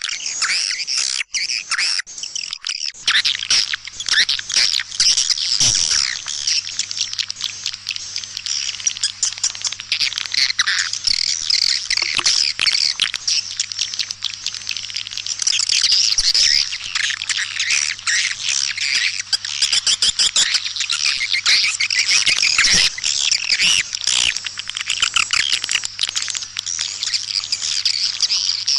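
Swiftlet lure call recording: a dense, continuous chorus of high-pitched twittering chirps of white-nest swiftlets, played to draw swiftlets into a nesting house. A faint low hum comes in about three seconds in.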